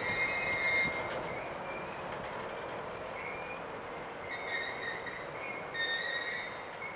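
Empty railroad hopper cars rolling through a curve: a steady rolling rumble of steel wheels on rail, with short high-pitched wheel squeals that come and go several times as the wheel flanges bind on the curved track.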